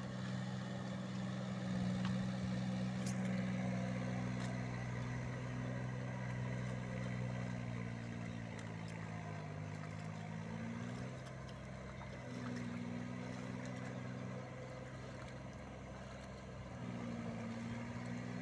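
An engine running steadily, its note sagging in pitch and recovering about ten seconds in, then dipping briefly twice more near the end.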